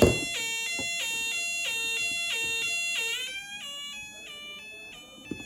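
Homemade Elenco European-siren kit sounding through its small speaker: a buzzy electronic two-tone hi-lo wail that alternates between a high and a low pitch several times a second, showing the freshly soldered circuit works. About three seconds in the pitch slides up, the alternation slows and it gets quieter.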